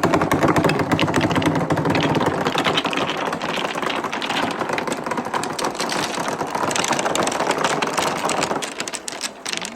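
Many marbles rolling and clattering down a long clear pipe and wooden gutter ramps, a dense rattle of clicks that thins out near the end.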